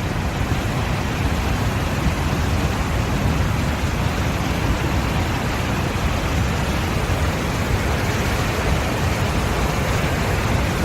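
Floodwater from an overflowing stream rushing through a washed-out road section: a loud, steady roar of torrenting water.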